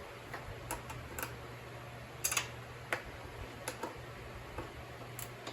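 Ratcheting wrench clicking in short, irregular bursts of ticks as a bolt is turned, over a faint steady hum.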